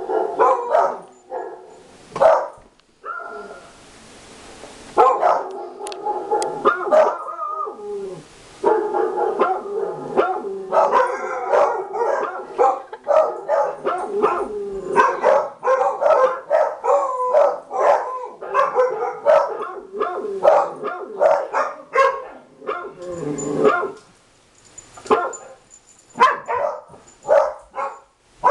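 Dogs barking in a rapid, overlapping stream, several barks a second, a mix of a dog-barking sound-effect recording played aloud and real dogs barking. Two short stretches of hiss break in, around three and eight seconds in.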